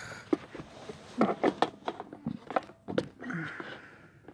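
Close handling noises: a string of light, irregular clicks and knocks, with a few brief vocal sounds between them.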